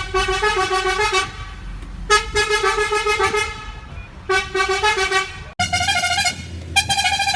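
London bus horn sounding in three blasts of about a second each, each with small steps in pitch. About five and a half seconds in it cuts abruptly to a higher-pitched, edited version of the horn in shorter blasts.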